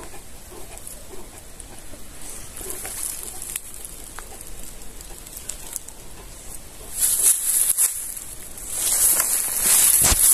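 Outdoor rustling: faint scattered clicks at first, then a loud dry rustle about seven seconds in that stops after a second and starts again near the end.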